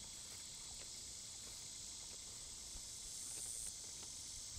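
Steady, high-pitched insect chorus in the summer grass, faint and unbroken.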